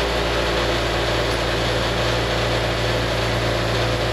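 Electric vibrating motors shaking the steel deck of a homemade gold washplant loaded with dirt. They run steadily, with a low hum under a dense rattling noise.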